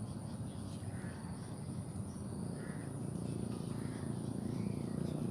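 Outdoor ambience: a steady low rumble under a constant high, thin whine, with a few short bird-like chirps. The rumble grows slightly louder near the end.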